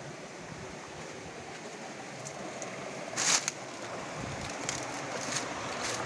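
Shallow rocky river water running steadily over and between boulders. A brief scrape about three seconds in, with a few faint clicks after it.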